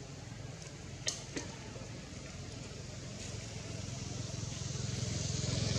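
A motor vehicle's engine droning, growing steadily louder as it approaches. Two short sharp clicks about a second in.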